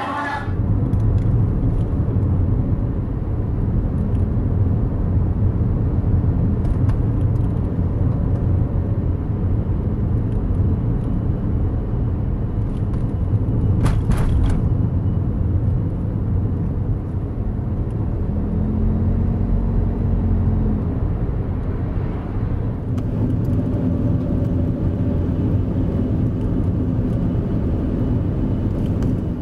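Car driving at a steady speed: a constant low rumble of road and engine noise, with a single sharp click about halfway through.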